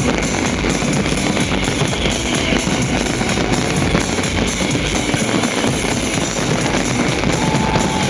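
Loud rock music with a driving drum kit and guitar, running continuously.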